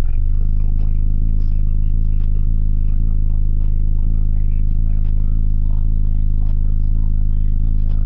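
Four Resilient Sounds Team 18-inch subwoofers in a quarter-wave T-line box, driven by a 20K amplifier, play a steady deep bass note inside the vehicle cabin. Interior trim rattles and clicks against it.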